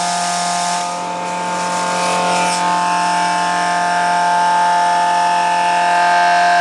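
Truck-mounted mobile feed mill running: a steady machine drone with several fixed humming tones, dipping slightly about a second in.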